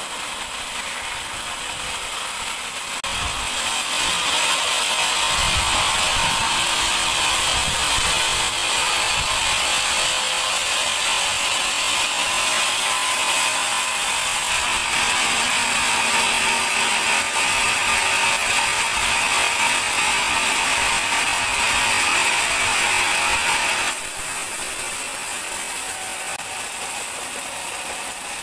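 Sawmill band saw cutting a large teak log. Its steady hissing whine gets louder about three seconds in and drops back to a quieter running noise near the end.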